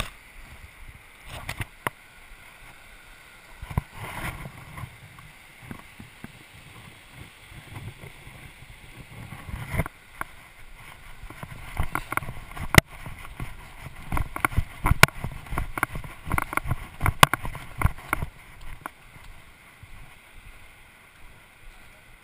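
Footsteps on a dirt and gravel trail with clicks and knocks from a handheld camera, busiest in the middle stretch, over a faint steady hiss.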